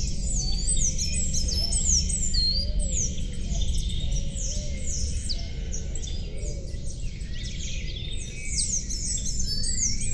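A chorus of songbirds singing and chirping, many overlapping quick, high, falling whistled notes, over a steady low background hum.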